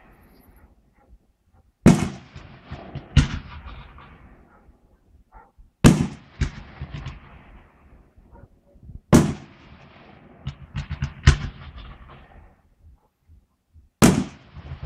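Fireworks display: a series of loud shell bursts, about six bangs spaced one to three seconds apart, each followed by a rolling echo and scattered smaller pops.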